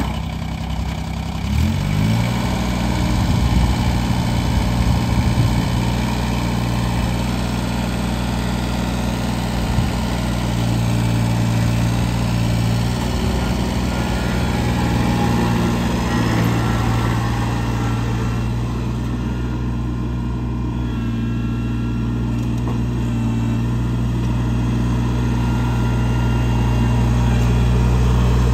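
Kubota BX2380 compact tractor's three-cylinder diesel engine being started: a short stretch of cranking, then the engine catches about two seconds in and rises to a steady idle.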